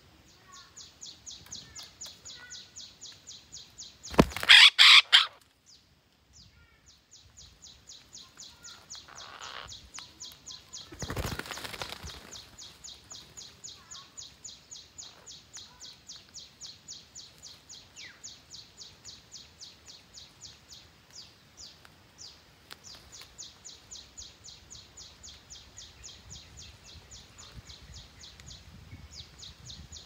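Green parrots giving a loud burst of harsh squawks about four seconds in, with a brief rustling burst around eleven seconds. A steady, fast, high-pitched pulsing chirr continues behind them.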